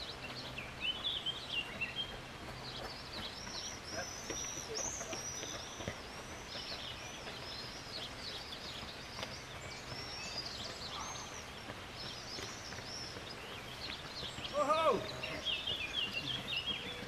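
Songbirds chirping and singing, with many quick high chirps repeating throughout. A single short, louder call sounds about three-quarters of the way through.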